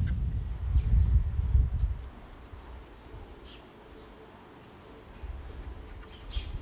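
Soft scratching of a small paintbrush working paint onto a hard plastic RC model body, a few faint strokes. A low rumble fills the first two seconds.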